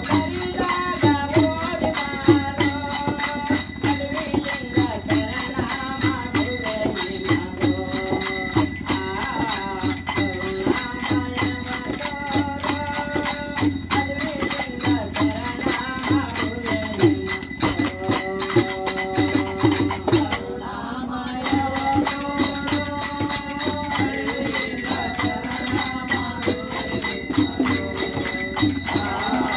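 A group of men singing a devotional bhajan to a steady, fast beat of small hand cymbals and jingles. The jingling breaks off briefly about two-thirds of the way through, then resumes.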